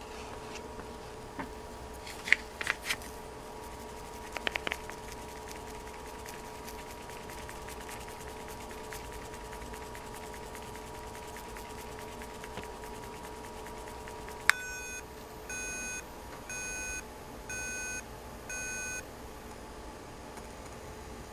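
A few light knocks in the first seconds, then a sharp click, followed by five short electronic beeps about one a second from an M5Stack's built-in speaker. The beeps are its gas alarm, set off by the BME680 gas sensor picking up ethanol vapour.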